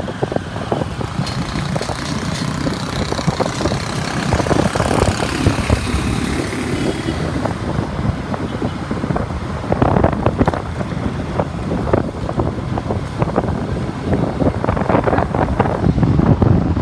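Motorbike traffic heard from a moving motorbike: engines running and passing, under a steady low rumble.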